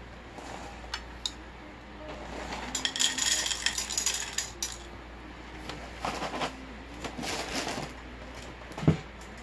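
Dry Franken Berry cereal pieces poured from the box into a paper cup, a rattling patter that comes in one long pour and then two shorter ones. A single sharp thump near the end.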